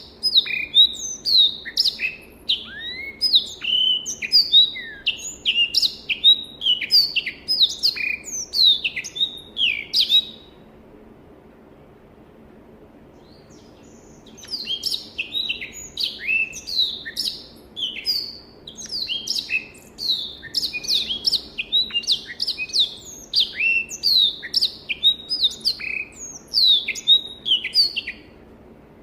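Black-throated canary (Crithagra atrogularis) singing a fast, varied song of rapid high chirps and glides, breaking off for about four seconds around the middle before resuming.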